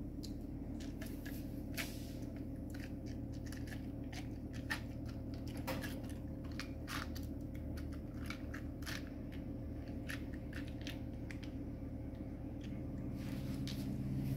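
Ice cubes in a plastic cup crackling and clicking irregularly as coffee mixed with milk is poured over them, with a steady low hum underneath.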